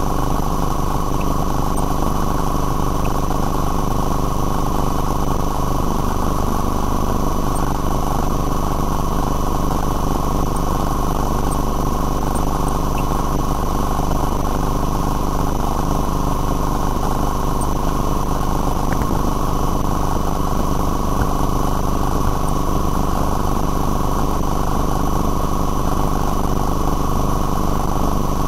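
Steady, unchanging machine hum with several constant tones, like an engine running at idle.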